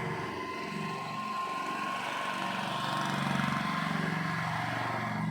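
Street traffic: a motor vehicle's engine running steadily, getting a little louder around the middle.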